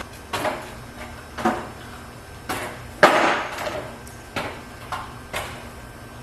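Irregular knocks and clunks of short cut lengths of 2x4 lumber being handled and set down, about nine in all, the loudest about three seconds in.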